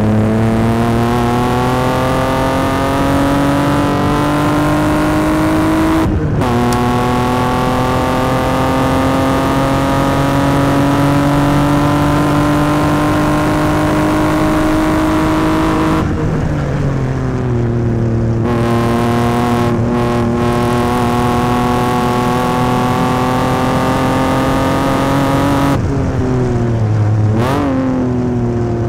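1995 BMW M3's straight-six at racing speed, heard right at the tip of its 2.5-inch Bimmerworld race exhaust. The revs climb, dip briefly about six seconds in as it shifts up, and climb again for about ten seconds before the throttle lifts and the note falls back. Near the end there is a quick rev blip.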